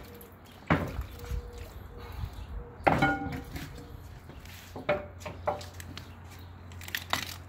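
Cracks and clicks of crab shell as a giant crab's body and legs are pulled apart by hand, with knocks of pieces against a wooden cutting board. There are several separate sharp cracks, the loudest about three seconds in and two close together near the end.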